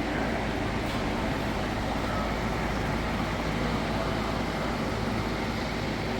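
Large shop ventilation fan running steadily on its low setting: a constant rush of air with a low hum underneath.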